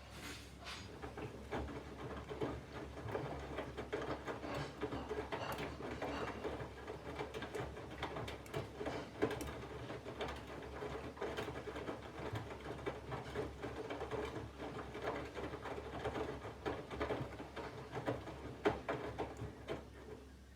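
Candy GVF4 front-loading washing machine turning its drum in the main wash: the motor hums while wet laundry sloshes and patters inside. The drum stops near the end.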